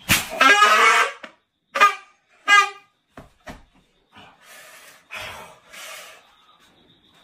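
A plastic party horn blown in one long, loud blast, then two short toots about two and two and a half seconds in. A couple of sharp clicks follow, then a few softer, breathy, unpitched puffs.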